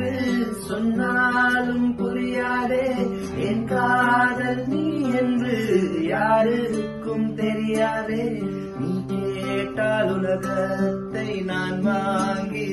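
A man and a woman singing a song together, accompanied by a classical nylon-string acoustic guitar.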